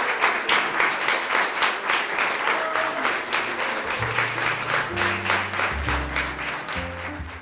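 Audience applause, a dense steady clapping. About four seconds in, music with low bass notes comes in underneath the clapping.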